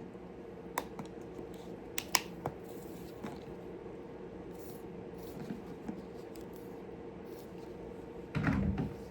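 A few sharp plastic clicks and small scraping ticks as a container is worked by hand to pop it open, over a steady low electrical hum. A short, louder, muffled burst comes near the end.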